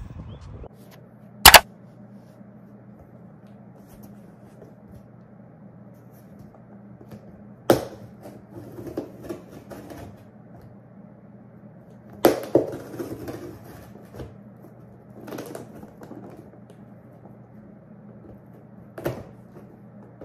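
Cardboard box being opened by hand with a knife: a few sharp knocks and taps on the box, the loudest about a second and a half in, with short stretches of cutting and scraping at the tape and flaps between them.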